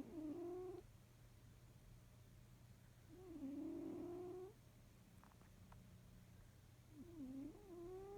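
Sleeping cats snoring softly: three wavering, pitched snores about a second long each, coming roughly every three and a half seconds.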